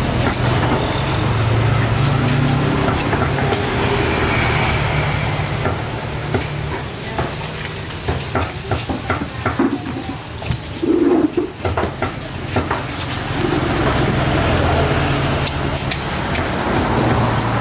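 A fishmonger's knife working on a whole tuna on a wooden chopping block: a run of quick scraping clicks in the middle, over a steady low hum and hiss of market noise.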